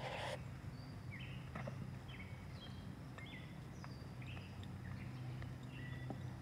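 Small birds chirping in short, high calls, about two a second, over a steady low hum.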